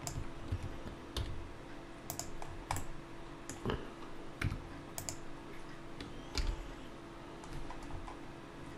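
Computer keyboard keystrokes and mouse clicks, tapped at irregular intervals while working software shortcuts, over a faint steady hum.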